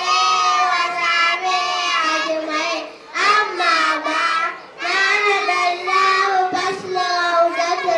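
A group of young children singing together, with short breaks in the voices about three seconds in and just before five seconds.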